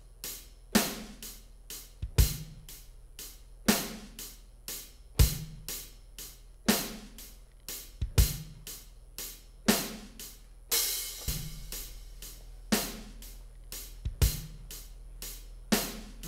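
A looped electronic drum beat: a low kick thump about every one and a half seconds, with lighter hi-hat and snare-like hits between and a longer cymbal wash about eleven seconds in.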